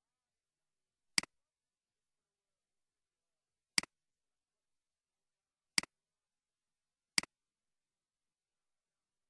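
Four computer mouse clicks, each a quick press-and-release click, spaced one to two and a half seconds apart, with nothing else to hear between them.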